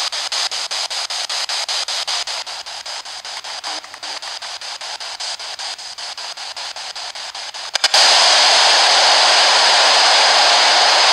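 Spirit box sweeping through radio stations: white-noise static chopped into about five blips a second. About eight seconds in it jumps to a louder, steady hiss.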